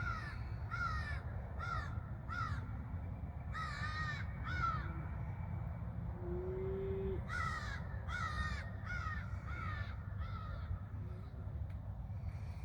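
Crows cawing: several runs of short, arched calls, about a dozen in all, with a steady low rumble underneath.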